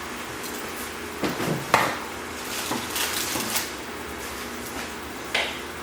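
Kitchen clatter: scattered knocks and clinks of pots, pans and utensils being handled during cooking. The clatter is busiest in the middle, with one last knock near the end.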